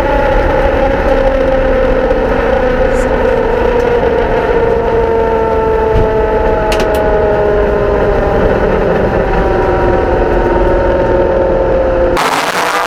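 Drag-race car engine noise: steady droning tones that fall slowly in pitch, cut off about twelve seconds in by a sudden loud rushing noise.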